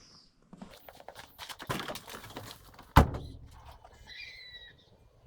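A run of knocks and clatter, with one loud thunk about three seconds in and a short squeak a second later.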